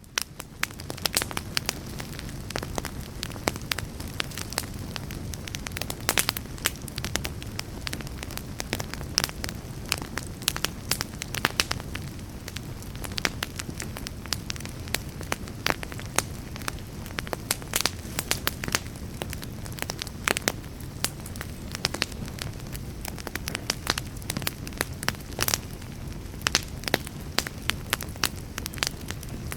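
Wood fire burning in a fireplace: a steady low rumble of flames with frequent sharp crackles and pops from the burning logs, fading in at the very start.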